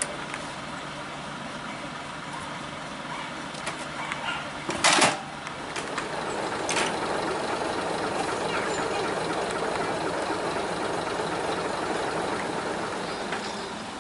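Heritage diesel multiple unit's engines running steadily at idle, with a loud bang about five seconds in and a smaller click soon after. The engine sound grows somewhat louder through the second half.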